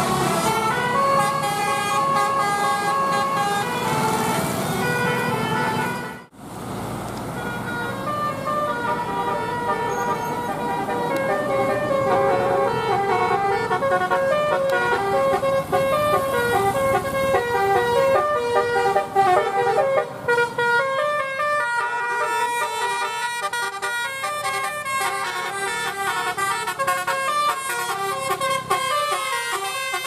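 Bus 'telolet' horn: a multi-tone air horn playing quick melodic runs of stepping notes. It breaks off sharply about six seconds in, then another horn tune carries on.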